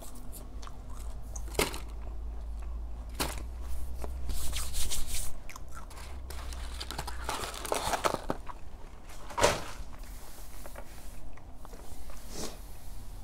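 Close-up eating of a chicken nugget mixed with handling of the cardboard nugget box and packaging: crinkling and rustling, loudest about four to five seconds in, with a few sharp clicks and taps.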